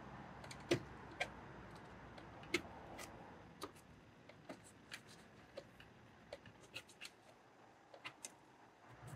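Scattered, irregular sharp clicks and light taps, the loudest few in the first three seconds, from a hand tool and plastic card working at the edge of a fabric-covered car door panel.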